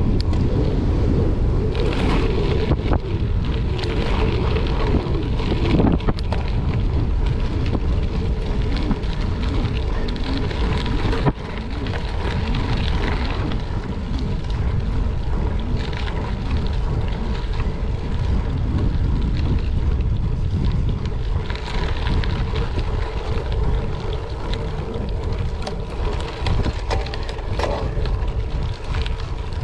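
Wind buffeting the microphone of a riding gravel bike, over the rumble and crackle of its tyres rolling on a gravel road.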